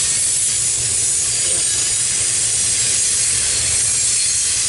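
CSX double-stack intermodal freight train rolling past, a steady rumble and rattle of wheels on rail with a hiss, and a faint brief wheel squeal about a second and a half in.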